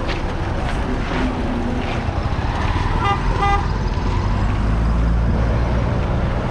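Street traffic noise with a steady low engine rumble; a vehicle horn gives two short toots in quick succession about three seconds in.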